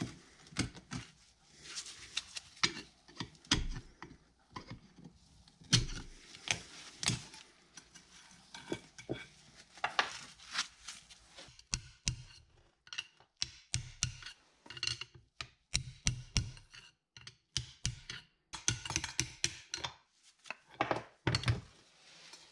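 Ball-peen hammer striking a pry bar set against a driveshaft, driving a part back off the shaft: a long run of uneven metal knocks and taps with lighter clinks between them.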